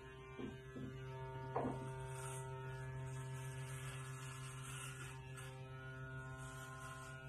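Corded electric hair clippers running with a steady buzz, with a few soft knocks in the first two seconds.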